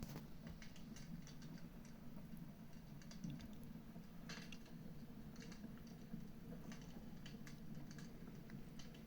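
Wood fire crackling in a fireplace: faint, irregular pops and snaps, one a little sharper about four seconds in.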